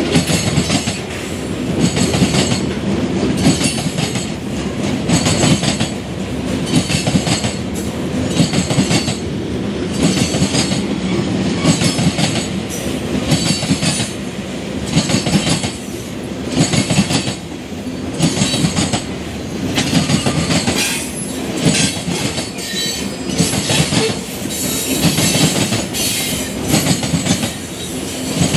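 Freight train cars rolling past close by: steel wheels clatter over the rail joints every second or so above a continuous rolling rumble.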